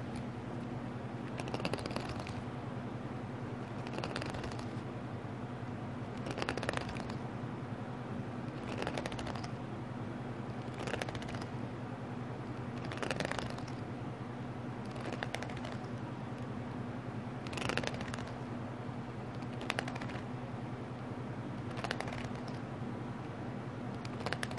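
Folding hand fan swished close to the microphone, a short papery, clattering whoosh about every two seconds, over a steady low hum.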